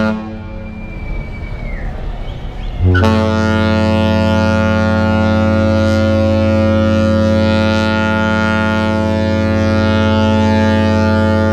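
A cruise ship's horn begins about three seconds in and sounds one long, deep, steady blast that does not let up.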